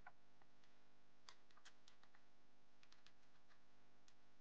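Keys of a Casio fx-991DE X scientific calculator being pressed: a dozen or so faint, short clicks at an uneven pace.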